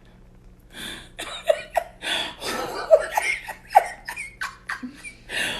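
Breathy laughter in many short, irregular bursts, starting about a second in.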